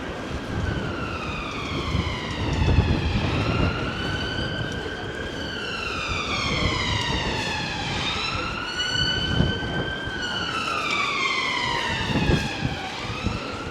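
Emergency vehicle siren in a slow wail, its pitch rising and falling in long sweeps about three times, over street noise.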